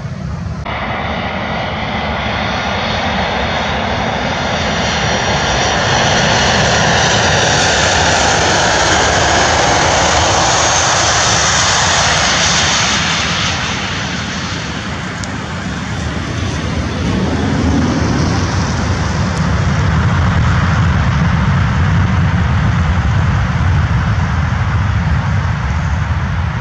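Jet engines of a Ryanair Boeing 737 landing: a steady high whine and hiss as it comes over the runway and touches down, easing off about halfway through. A deeper rumble then swells and holds as the jet rolls out.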